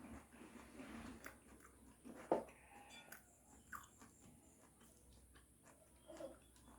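A person eating, faintly chewing with small wet clicks of the mouth, and one sharper click about a third of the way through.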